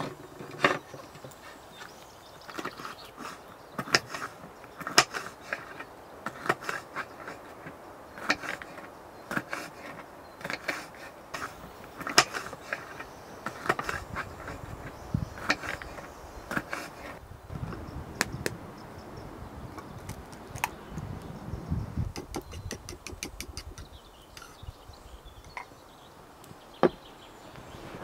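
A string of irregular sharp clicks and knocks of objects being handled, with a quick run of fine ticks near the end.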